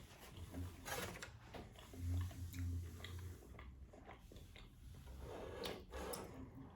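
Close-miked chewing and wet mouth sounds of someone eating, with scattered small clicks.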